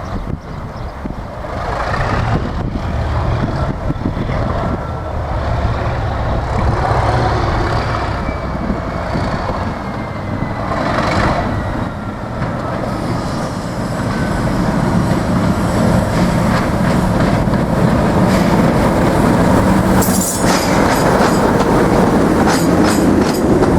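Class 37 diesel locomotive's English Electric V12 engine working under power, a steady heavy rumble that grows louder about halfway through. Near the end the wheels click sharply over rail joints.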